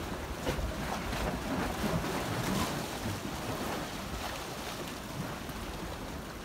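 Wind blowing across the microphone over the steady wash of the sea on a beach, with no clear breaks or single waves.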